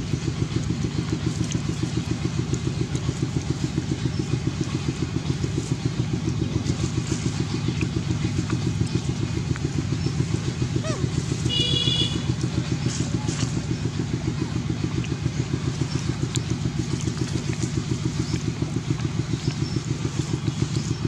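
A small engine running steadily, with a fast, even low throb. A brief high-pitched squeak comes about halfway through.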